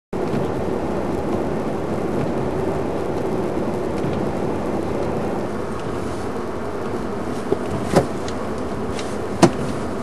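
Steady running noise of a car heard from inside the cabin, with three short sharp clicks near the end.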